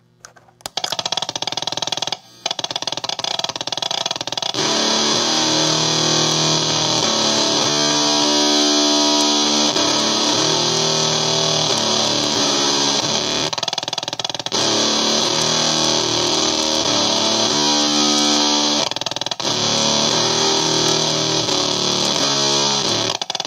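Electric guitar playing a heavy drop-D riff through a Basic Audio Pendulum fuzz pedal in oscillation mode, set for a continuous but stuttery crackle over warm fuzz. The guitar comes in about a second in, with a few short breaks between phrases.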